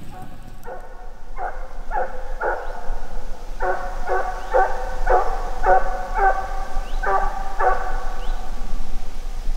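A dog barking in a steady run of about a dozen short, clear barks, roughly two a second, with a brief break about three seconds in; the barking stops near the end.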